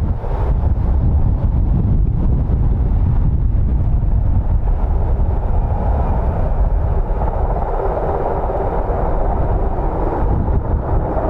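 VH-60 White Hawk helicopter running, a loud steady low rumble of its twin turboshaft engines and rotor, with the mid-range filling out about seven seconds in.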